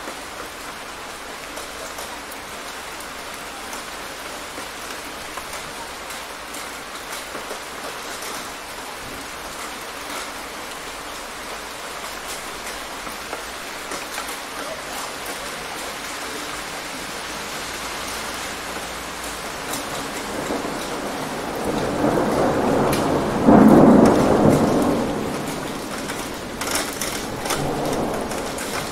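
Steady rain falling, with a roll of thunder that builds about two-thirds of the way in, peaks a few seconds later and rumbles away, with a few sharp cracks near the end.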